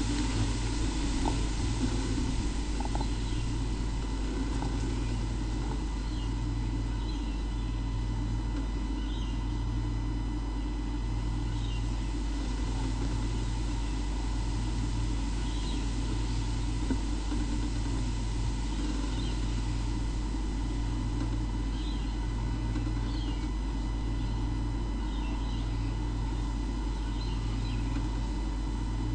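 Steady low hum with a low throb repeating about every second and a half, under thin steady whine tones, and faint short high chirps now and then.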